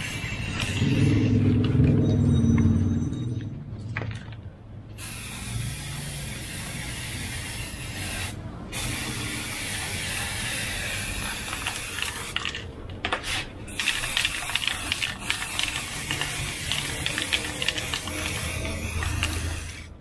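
Aerosol can of Samurai flat black spray paint hissing in long sprays with a few short breaks, as a second coat goes on. A louder, lower-pitched sound fills the first three seconds.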